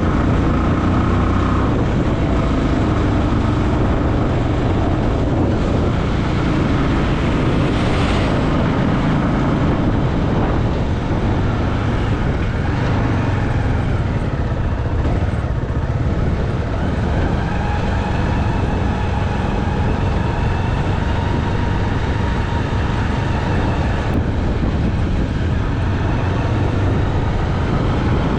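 Motorcycle engine running steadily while riding, with heavy wind noise on the microphone.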